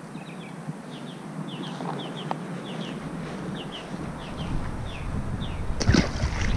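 A bird calling repeatedly in short falling chirps over an outdoor background. Just before six seconds in, a sharp splash as a snakehead is dropped into the canal water.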